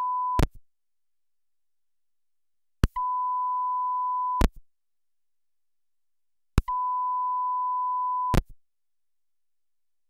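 A steady 1 kHz test tone passed through a Mackie Big Knob Passive monitor controller is cut and restored by its mute switch about every two seconds, three times off and twice back on. Each switching adds a sharp pop, particularly ugly: the passive switch contacts making and breaking the audio path.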